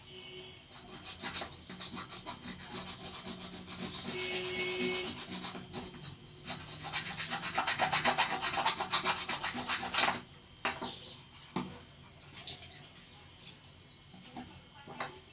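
Rapid back-and-forth abrasive rubbing strokes by hand, as in scrubbing rust off metal. They are fastest and loudest, several strokes a second, from about six to ten seconds in, then die down to a few faint scrapes.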